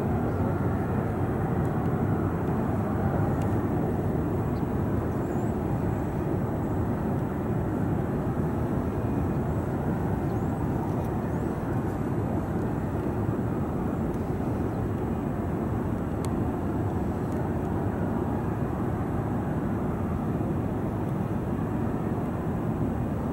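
Boeing 737 jet engines running at taxi power: a steady, even rumble that neither rises nor falls.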